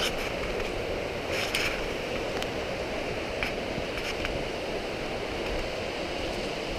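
Steady rush of rain and a nearby mountain river, with a few faint knocks from walking in rain gear.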